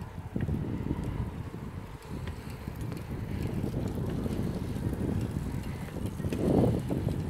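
Wind buffeting the microphone of a camera carried on a moving bicycle, a steady low rumble over the tyres rolling on asphalt, with faint scattered ticks and rattles from the bike. The rumble swells louder about six and a half seconds in.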